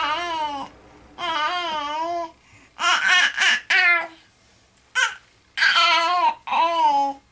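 A baby babbling: a string of high, drawn-out vocal sounds that glide up and down, with a run of short choppy ones in the middle.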